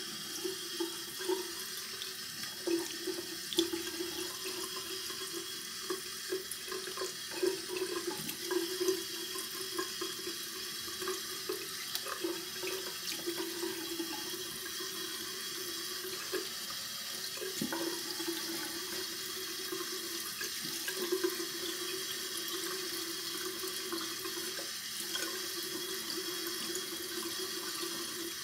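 Cold tap water running into a bathroom sink while leftover shaving lather is splashed and rinsed off the face by hand, with irregular splashes that are most frequent in the first half.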